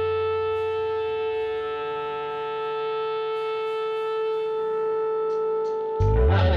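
Soundtrack music: one long, steady held note with a low note under it. About six seconds in, a much louder, fuller band sound comes in.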